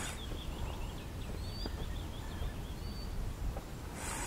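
Quiet outdoor ambience: a steady low rumble with a few faint, short, high bird chirps, including a quick twittering series about a second in.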